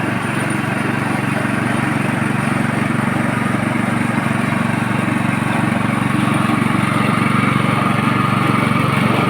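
Motor of a coconut milk press machine running with a steady, even hum.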